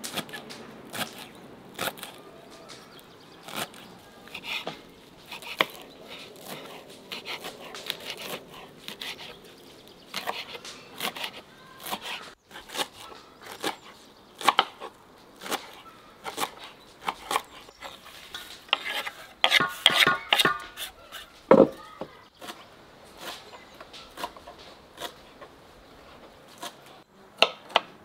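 Kitchen knife chopping fresh herbs on a wooden cutting board: quick, irregular knocks of the blade through the leaves onto the board.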